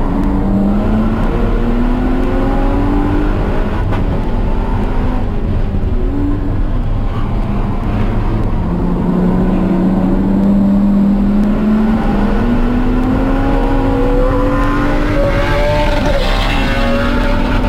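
Car engine heard onboard during a track lap, climbing in pitch under acceleration. Its pitch dips briefly about six seconds in and drops sharply near the end before climbing again, over steady road and wind noise.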